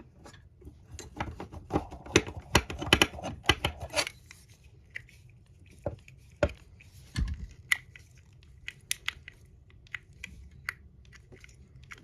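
Small plastic model-kit parts and a screwdriver being handled on a work surface: a quick run of clicks and taps in the first four seconds, then scattered single clicks, with one dull knock about seven seconds in.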